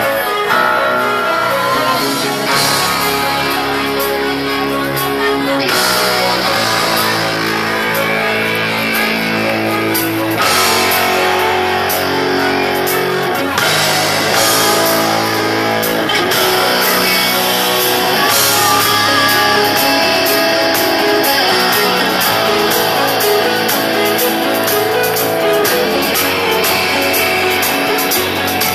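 Live rock band playing an instrumental passage: guitar notes held and changing every few seconds over bass, with drums and cymbals keeping a steady beat.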